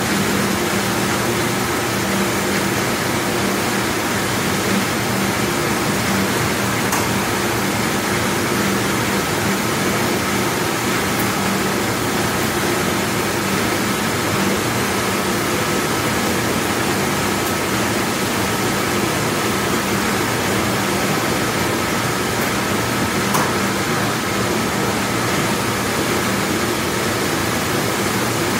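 Large commercial dishwashing machine running with a steady, even rush of noise and a low hum, with a few faint clicks.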